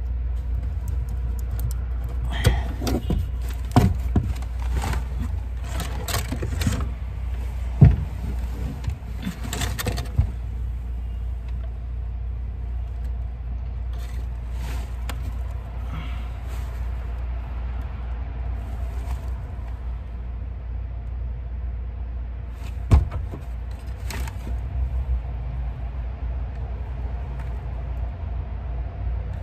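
Scattered clicks and knocks of hands and tools working at a car's fuel pump access opening, thickest in the first ten seconds, with a sharp knock about eight seconds in and another near twenty-three seconds, over a steady low rumble.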